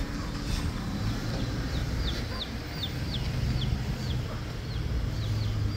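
Feral chicks peeping: a run of short, high peeps, each falling in pitch, starting about two seconds in and repeating a few times a second, over a low steady hum.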